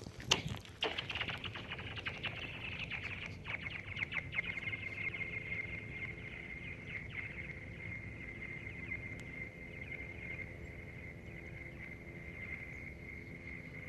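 A thrown rock hitting and skittering across thin, newly frozen lake ice: a few sharp knocks near the start, then a run of fast clicks and a high, ringing chirp-like whistle that settles into a steady tone and slowly fades.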